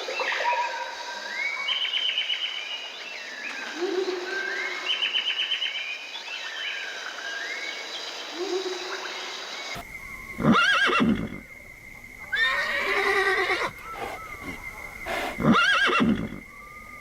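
A bird singing, repeating short chirping and whistled phrases, then about ten seconds in an abrupt switch to a large animal's loud calls, three main calls with quieter ones between.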